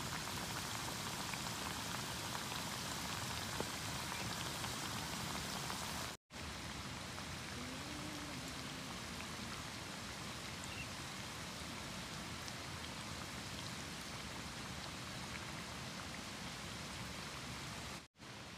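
Battered pieces deep-frying in hot oil in a small camping pot on a portable gas canister stove: a steady sizzle. It cuts out briefly about six seconds in and again near the end.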